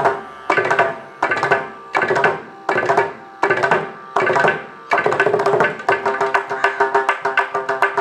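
Mridangam and ghatam played together: sharp ringing drum strokes, first slow and evenly spaced, then speeding up to a fast run of about six strokes a second over the last couple of seconds.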